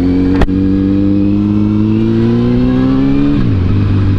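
Honda 919's inline-four engine pulling under throttle, its pitch rising slowly for about three seconds, then falling sharply and settling lower. A single sharp click about half a second in.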